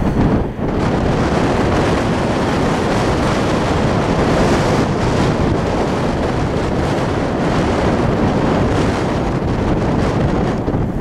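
Wind buffeting the microphone, a loud, steady rushing noise, with a brief dip about half a second in.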